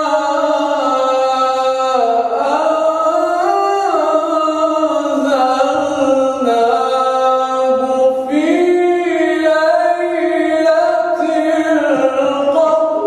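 A man reciting the Quran in melodic tajweed style, one male voice drawing out long notes that glide up and down between pitches, with a few brief breaks, the phrase closing right at the end.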